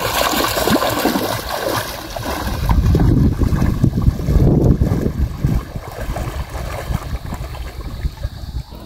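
Shallow seawater sloshing and gurgling around a person wading, loudest from about two and a half to five seconds in.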